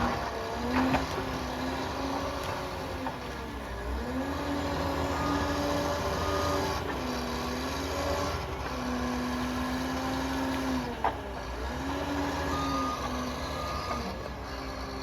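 Liebherr PR 746 crawler dozer working, its diesel engine and hydrostatic drive giving a steady whine over a low rumble. The pitch sags briefly a few times as the machine takes load, and there are a couple of sharp clanks.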